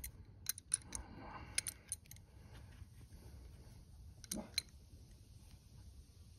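Crescent wrenches clicking and clinking against a metal turn-signal bracket as it is bent straight by hand: several light metal clicks in the first two seconds, then two more a little past four seconds.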